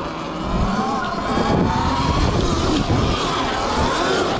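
Sur-Ron X Light Bee electric dirt bike's motor whining under hard throttle as it climbs through soft sand, the pitch rising and falling with the throttle. Wind buffets the microphone underneath.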